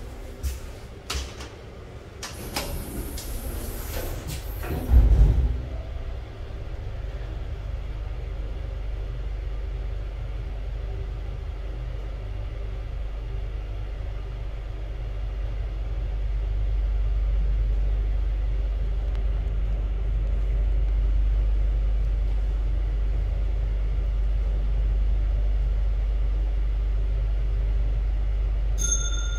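1980s Hitachi lift: the doors slide shut with a thump about five seconds in, then the car travels with a steady low rumble that grows louder about halfway through. A short high tone sounds near the end.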